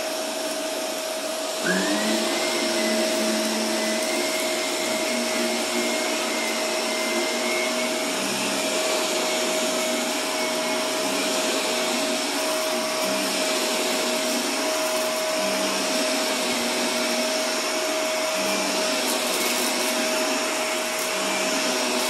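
Upright bagless vacuum cleaner running steadily over carpet, with a constant high whine. About two seconds in the sound grows louder and a second whine rises and then holds.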